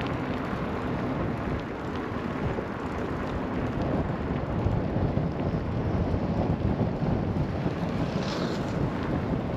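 Wind rumbling on the microphone: a steady low noise with a few faint clicks.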